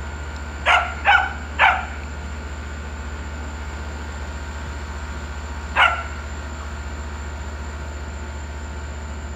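Pembroke Welsh corgi puppy yipping: three short yips in quick succession about a second in, then one more near six seconds.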